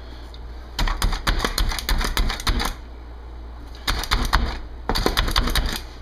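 Hand-pumped plunger food chopper clacking as its spring-loaded blades are pressed down again and again through diced onion. The clicks come in three runs of several a second, with a pause of about a second after the first run.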